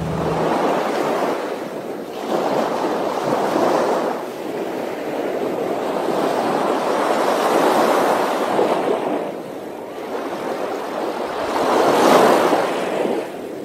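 Rushing, splashing water from a boat moving fast through choppy sea. The rush swells and fades several times, with the loudest surge near the end.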